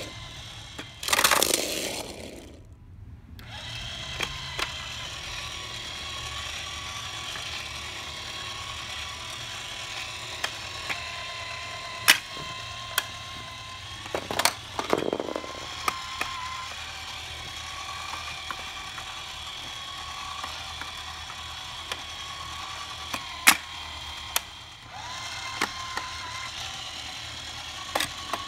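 Plastic toy play set and toy engines being handled: scattered sharp plastic clicks and knocks, with a brief rattling rush about a second in and another about halfway, over a steady low background hum.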